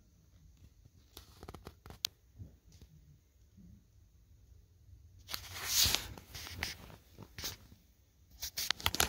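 Handling noise: faint scattered clicks and taps, a brief rustle about five seconds in, and a few sharper clicks near the end.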